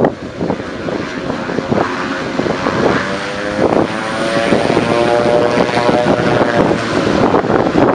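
Air Tractor's turboprop engine and propeller running as the aircraft taxis past, a steady drone with a whine of several stacked tones through the middle that bend slightly in pitch.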